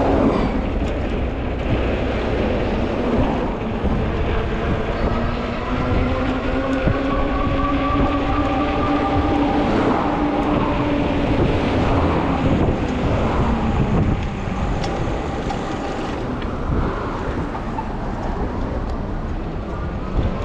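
Electric hub motor of a fat-tire e-bike whining while riding, its pitch slowly rising and falling with speed, over a steady rushing noise.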